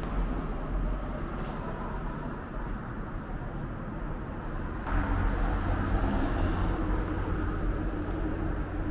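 Street traffic noise, a steady low rumble of passing road vehicles; about five seconds in, a vehicle's engine comes up louder.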